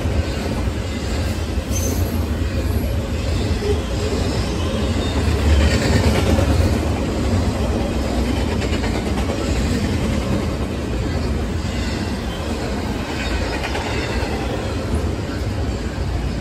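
Intermodal freight train of double-stack container well cars rolling past at close range: a steady rumble of steel wheels on the rails that runs without a break.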